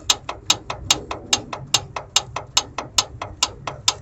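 Idling engine with a sharp, even knocking tick about twice a second and fainter ticks in between, over a steady low hum. The knock appeared after a displacement-on-demand delete, and the owner suspects the engine-driven vacuum pump, or possibly a wobbling harmonic balancer.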